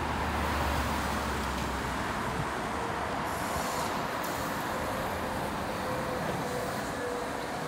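Neoplan electric trackless trolley (trolleybus) pulling past on the street: a steady run of tyre and road noise with a faint, wavering electric whine from about three seconds in. A low rumble from other traffic sits under it in the first two seconds.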